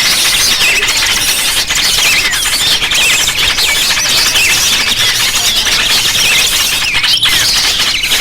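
A flock of small songbirds chattering nonstop: many overlapping high, squeaky chirps and short glides, a bird-trapping lure recording of noisy small birds.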